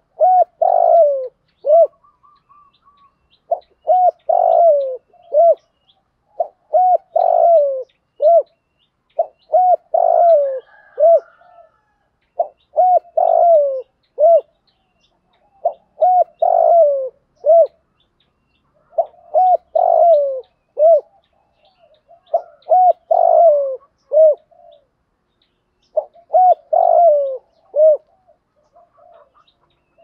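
Spotted dove cooing: the same phrase of several low coos repeated about every three seconds, each phrase ending in a short separate note.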